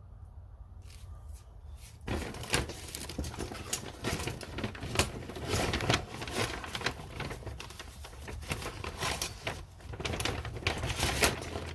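Metal hand tools being handled: a dense run of irregular clicks, clacks and rattles that starts about two seconds in.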